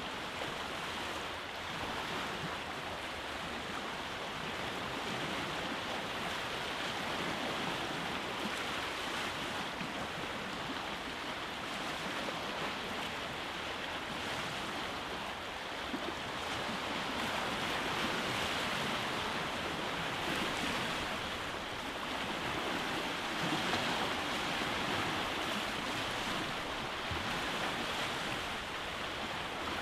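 Sea surf on a rocky beach: waves breaking and washing in as a continuous hiss that swells and eases slowly, a little louder in the second half.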